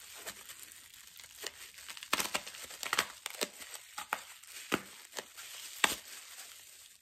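Wrapping crinkling and rustling in the hands as a small packaged item is unwrapped: a string of irregular crackles and rustles, with a sharper snap near the end.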